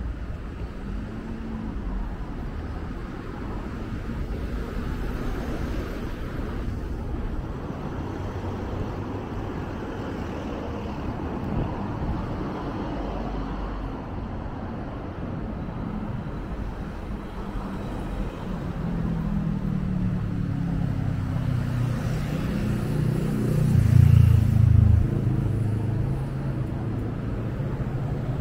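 City street traffic: a steady hum of passing vehicles, with a large vehicle's engine growing louder near the end and loudest just before it fades.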